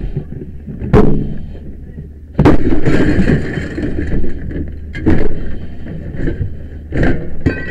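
A run of heavy blows and crashes: five hard impacts a second or two apart, the biggest about two and a half seconds in, trailing off into a second of clattering.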